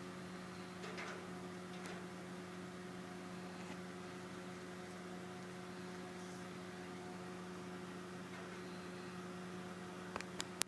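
A steady electrical-sounding hum with several higher overtones over faint hiss, and a few sharp clicks near the end.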